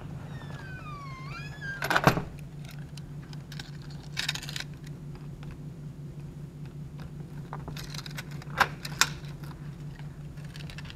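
A dorm room door creaks and shuts with a knock about two seconds in. Keys then jangle, and a key turns in the door's lever-handle lock with a few sharp clicks near the end. A steady low hum runs underneath.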